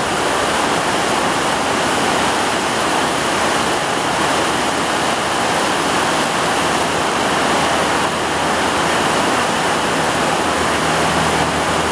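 Heavy rain pouring down steadily, a dense, even rush of water.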